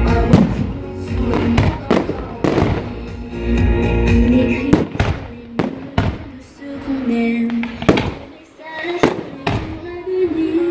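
Aerial firework shells bursting in quick succession: a dozen or more sharp bangs at irregular intervals over music with long held notes.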